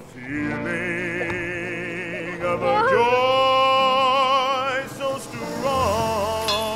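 Operatic singing voice with a wide vibrato, holding a long, loud note from about three to five seconds in.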